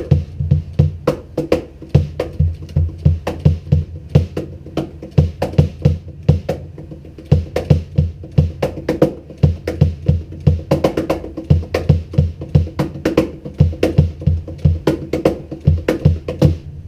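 Cajon played in a steady groove, with deep bass strokes from the Meinl chain-drive cajon pedal's soft rubber beater hitting the front plate, mixed with sharper, brighter strikes. The beats come several a second and carry on without a break.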